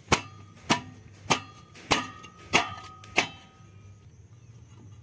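Six sharp metallic knocks, evenly spaced about 0.6 s apart, each with a brief ring, stopping a little after three seconds in.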